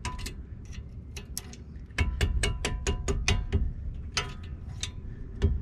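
Quick, irregular metallic taps of a hammer striking a punch to drive the pad-retaining pins out of a front brake caliper. A few light taps come first, then steady strikes about three or four a second from about two seconds in.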